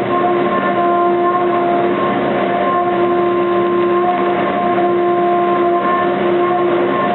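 CNC milling machine cutting aluminium at 2 mm depth of cut and a fast table feed: a steady whine with overtones over a rough hiss, running without a break.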